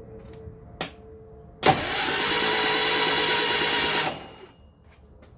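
A brief click, then the 1968 Datsun 1000's starter motor cranks the engine over for about two and a half seconds, starting with a sharp clack and stopping abruptly. The starter is energised by shorting across the solenoid terminals with a spanner to bypass a dead ignition switch, and the solenoid engages and winds the motor over really well.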